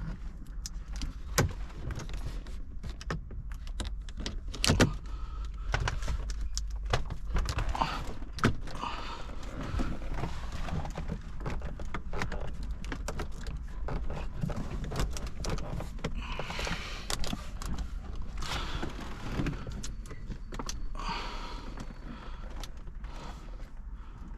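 Scattered clicks, knocks and brief rustles of hands handling parts inside a car, over a steady low rumble.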